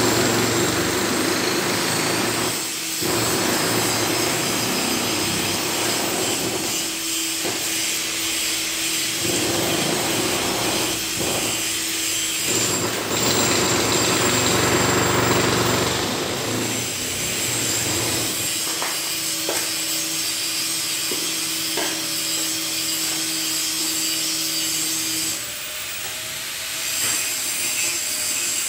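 Electric angle grinder cutting into steel, a continuous high whine and grinding hiss. Its tone shifts several times as the disc bites in and eases off.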